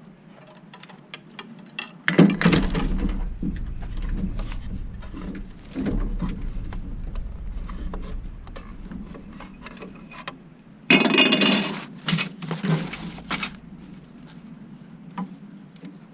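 Rattling and clattering of Earthway garden seeder seed plates being handled and sorted, in two louder bouts: one about two seconds in and another about eleven seconds in, with a low rumble of handling through the first half.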